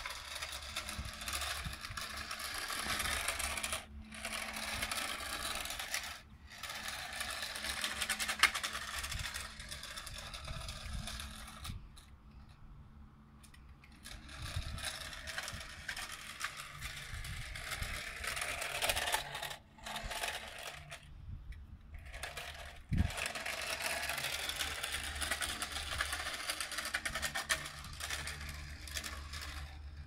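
Small electric motor and gears of a 1:18 scale toy remote-control Ferrari 458 Italia whirring as it drives over stone paving, cutting out and starting again several times, with a single knock about three-quarters of the way through.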